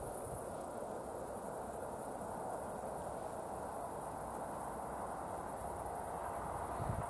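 Crickets chirring in a steady, high, fast-pulsing trill over an even low background noise.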